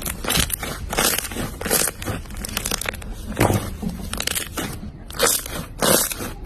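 Slime being squeezed and pressed by hand, giving a string of irregular crunchy crackles and pops, about one or two a second.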